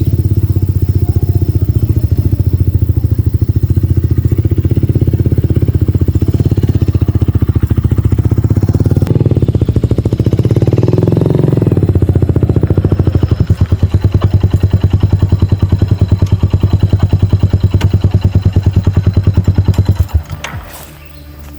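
Motorcycle engine running with a fast, even beat, settling to a slower, plainer pulse about halfway through, then cut off abruptly near the end.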